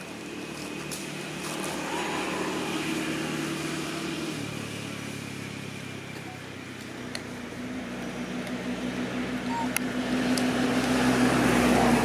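A motor vehicle's engine running nearby, a steady hum whose pitch shifts a couple of times and which grows louder toward the end as it comes closer.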